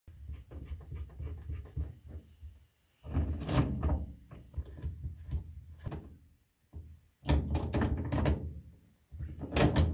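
Handling noise of metal on metal: channel lock pliers clicking and knocking against the threaded couplings of braided steel water supply hoses as they are screwed onto a washer's inlet valves and tightened. It comes in several bursts with short pauses between them.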